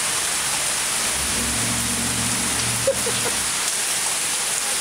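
Heavy rain pouring down in a steady hiss. A low hum rises in about a second in and fades out after about two seconds, and a single sharp tap comes near the middle.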